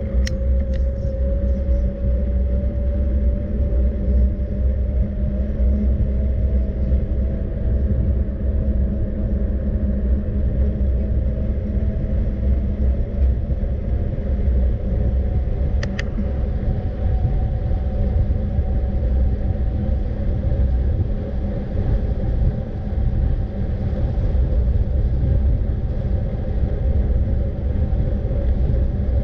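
Steady low rumble of a moving vehicle, with a hum that rises slowly in pitch throughout. A short click sounds about sixteen seconds in.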